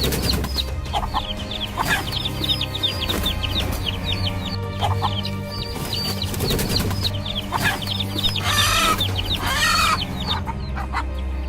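Chickens clucking, with a rapid run of short, high, falling chirps throughout and two louder calls near the end.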